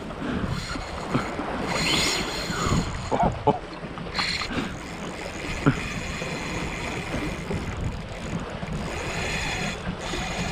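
Sea waves washing against a rocky breakwater, with wind buffeting the microphone and a few short knocks.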